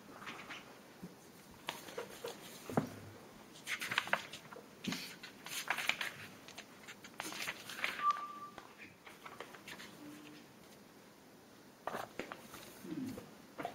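Scattered clicks, knocks and rustling of people handling a computer and equipment in a courtroom while it is being set up to show a photo, with one short steady tone about eight seconds in.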